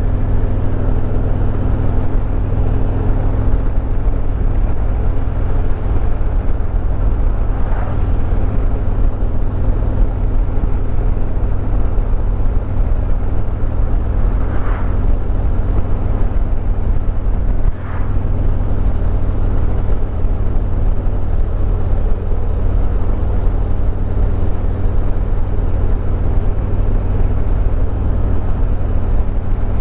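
Harley-Davidson Road Glide Limited's V-twin engine running steadily at cruising speed, under a steady rush of road and wind noise.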